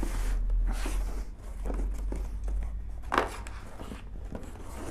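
Cardboard box being handled and turned over on a table: light scraping and tapping of the cardboard, with one sharper knock about three seconds in, over a steady low hum.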